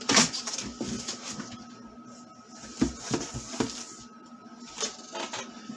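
Cardboard boxes being handled: a boxed solar charge controller slid and lifted out of its shipping carton, giving scraping, rustling and a string of knocks, the loudest right at the start. A faint steady hum runs underneath.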